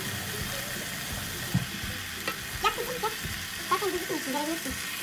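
Basmati rice and chickpeas toasting in a frying pan, sizzling steadily. A plastic spoon stirs through the rice, clicking and scraping against the pan from about a second and a half in.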